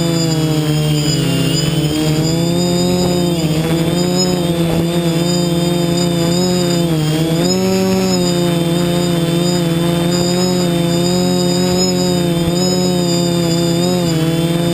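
Multirotor drone's electric motors and propellers whining steadily, the pitch wavering up and down every second or two as the flight controller keeps adjusting thrust in gusty wind.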